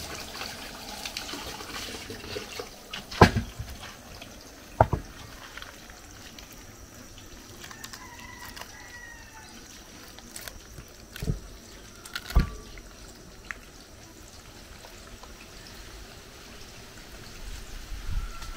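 Water running from an outdoor tap onto a wooden cutting board being rinsed, then wet hands working raw croaker fish in a glass bowl. Several sharp knocks stand out, two a few seconds in and two more a little past the middle.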